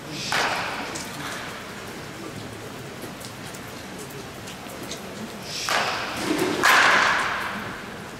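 Wooden bats striking pitching-machine balls in an indoor batting cage, each hit echoing through the hall: a lighter hit just after the start, then two hits close together near the end, the second the loudest.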